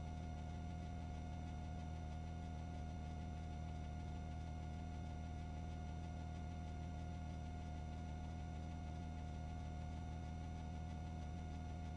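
A steady low hum with a faint hiss and a few fixed higher tones, unchanging throughout.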